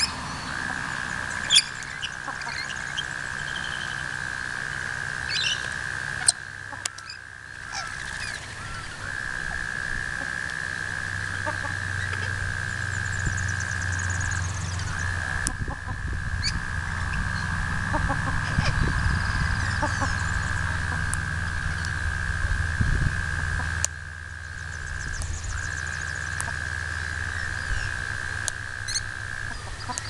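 Garden birds calling: scattered short chirps and calls over a steady high-pitched drone that drops out briefly a few times.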